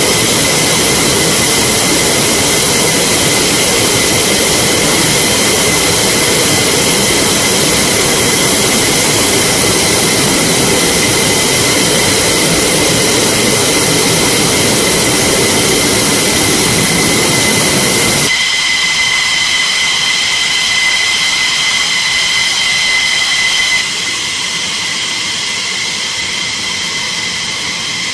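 F-15E Strike Eagle's twin turbofan engines running at ground idle: a loud, steady roar under a high, even whine. About two-thirds of the way in the roar drops away suddenly, leaving mostly the high whine.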